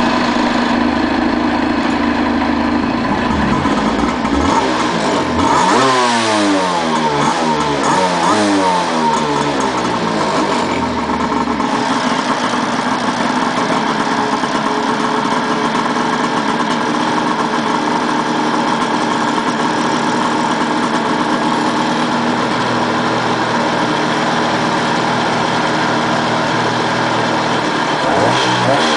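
1988 Kawasaki JS550 stand-up jet ski's two-stroke engine running out of the water, revved up and down several times in the first ten seconds or so, then idling steadily, and revved again near the end.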